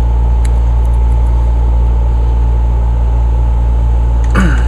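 Air conditioner running with a loud, steady low hum. There are a few faint clicks, and near the end a brief sound that falls in pitch.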